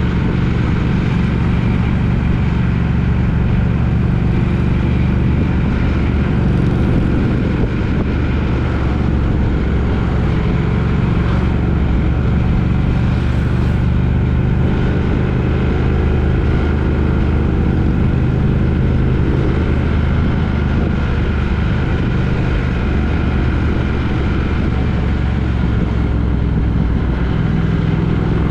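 A vehicle's engine running steadily at an even pitch, with a constant hum and road or wind noise.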